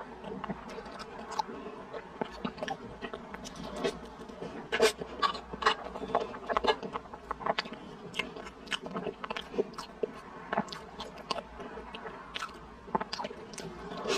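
Close-miked wet chewing and lip-smacking on soft mouthfuls of taro paste and mochi, with many small sharp mouth clicks, busiest about five to seven seconds in.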